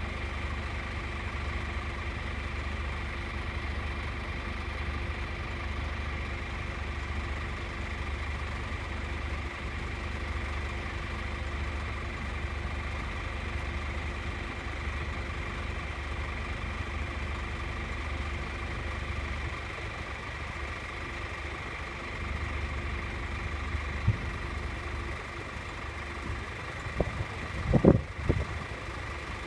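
A vehicle engine idling steadily, a low rumble with a steady hum over it, broken by a few sharp knocks near the end.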